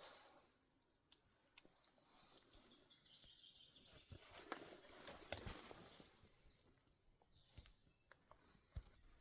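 Near silence with faint scattered clicks and rustling, and a few sharper ticks about five seconds in.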